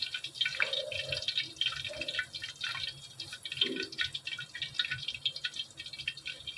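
Hot oil bubbling and crackling in a brass kadai, with oil dripping back into it from a slab of fried paneer held above to drain. There is a dense, irregular run of small crackles.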